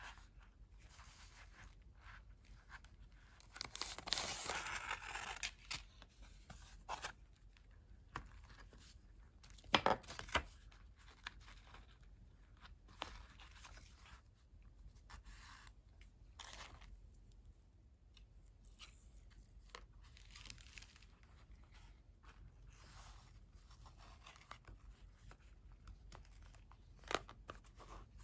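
Close-up handling of a leather Traveler's Notebook cover as a paper notebook refill is fitted in and fastened with its elastic cord. Paper rustles against the leather for a second or so about four seconds in, a few sharp clicks come about ten seconds in and another near the end, with soft handling noises between.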